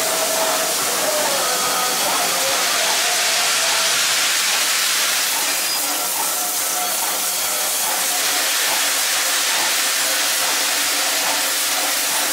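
JR East Class C61 steam locomotive C61-20, standing at the platform, venting steam with a steady, loud hiss.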